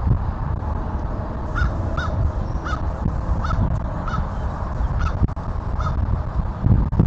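A bird calling about seven times in a row, short calls spaced well under a second apart, over a steady low rumble.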